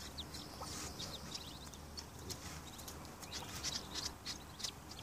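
Newly hatched Muscovy ducklings peeping: many short, high chirps overlapping one another.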